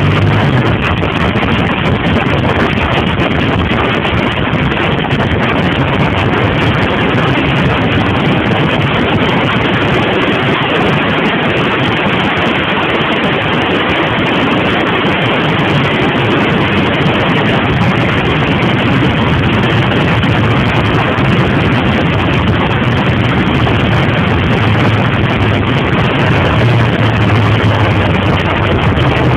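Suzuki TL1000R's V-twin engine running at road speed under a steady rush of wind noise. The low engine note comes through most plainly near the start and again near the end.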